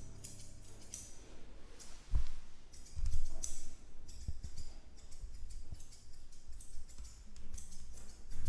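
Grooming scissors snipping hair in short, irregular cuts, with a few low knocks from handling. Soft background music fades out about a second in.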